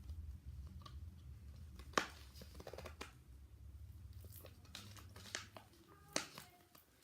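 Freshly activated glue slime being mixed: faint, irregular sticky clicks and crackles, with a sharper click about two seconds in and another near the end.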